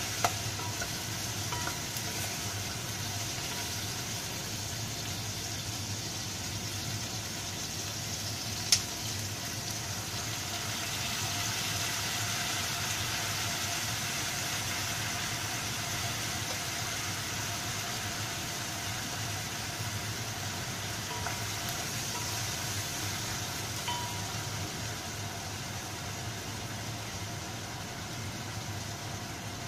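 Chicken feet sizzling in a pot over a gas burner: a steady hiss, with a sharp click about nine seconds in.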